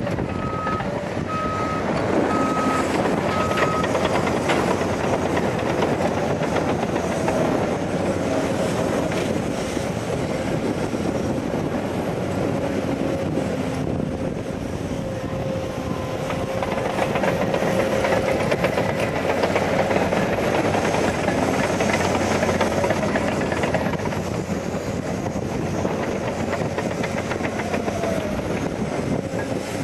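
Caterpillar 385C excavator's diesel engine and hydraulics running under load as it digs earth and loads a Caterpillar 769D dump truck. A steady whine runs through it and rises briefly twice.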